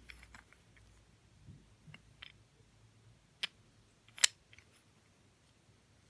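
Small wooden toy train tenders (Thomas Wooden Railway) being handled, with light scattered clicks and taps and two sharper clacks about three and a half and four seconds in.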